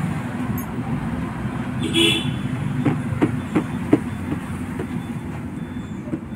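Steady road-traffic noise, with a brief vehicle horn toot about two seconds in, followed by five or six sharp clicks over the next second and a half.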